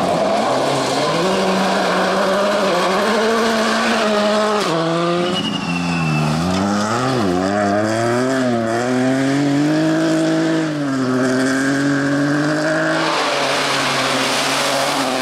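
Rally cars on a gravel stage, engines revving up and dropping back again and again through gear changes as the cars slide through corners, with tyres scrabbling and gravel spraying. A louder rushing hiss comes in near the end.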